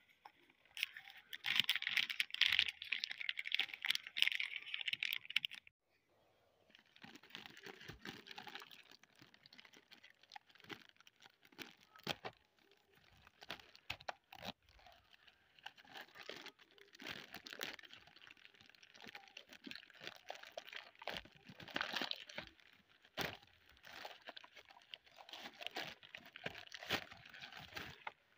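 Plastic courier mailer bag being torn open and crumpled by hand. Loud continuous crinkling and tearing fills the first six seconds, then after a brief pause comes on-and-off crinkling and rustling of the plastic with small sharp crackles.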